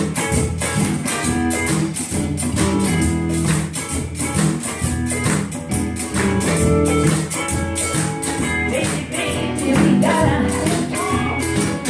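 Live blues band playing: electric and acoustic guitars, bass and drum kit keeping a steady beat, with a singer's voice coming in near the end.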